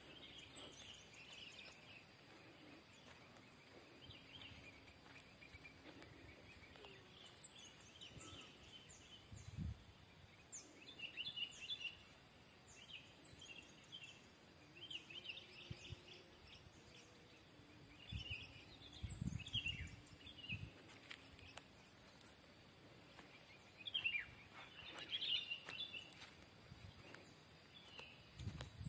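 Faint outdoor ambience of small birds chirping in short scattered bursts, with a few low thumps.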